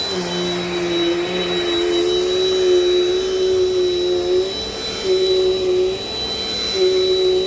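Dirt Devil Dynamite vacuum cleaner running, its motor giving a steady high whine. The motor's lower tone wavers and drops out briefly a couple of times as the vacuum is pushed over the floor.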